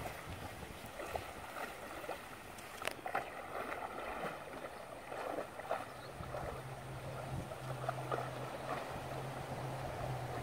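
A horse wading through a shallow river, its legs sloshing and splashing through the water with scattered small splashes. A steady low hum comes in about six seconds in.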